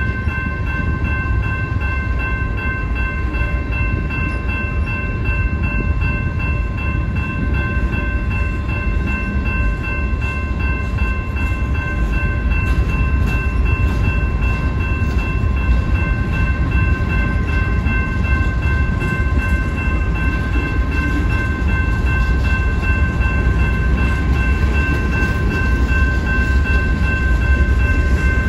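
Freight train cars rolling through a grade crossing: a loud, steady low rumble of wheels on rail. The crossing's warning bell rings continuously over it.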